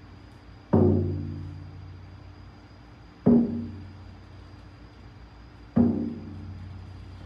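Hide-headed shamanic frame drum struck slowly with a padded beater: three single beats about two and a half seconds apart, each a deep tone that rings and fades away.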